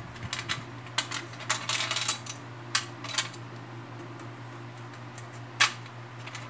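Sheet-metal parts of a dismantled mechanical bathroom scale clinking and clicking as they are handled: a quick run of clinks in the first two seconds, a few single ones after, and the loudest near the end. A steady low hum runs underneath.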